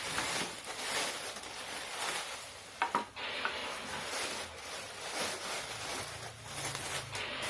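Rustling and rubbing as things are handled, with a couple of sharp clicks about three seconds in.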